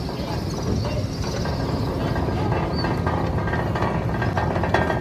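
Steady rumble and rattle of a ferry's engines and machinery while the ship berths. About four seconds in, a fast mechanical clattering starts up and grows louder.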